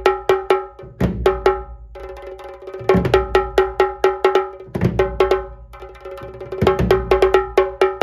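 Tasha kettle drum beaten with two sticks in quick strokes, each with a sharp ringing tone. A deep drum beat lands about every two seconds under the runs.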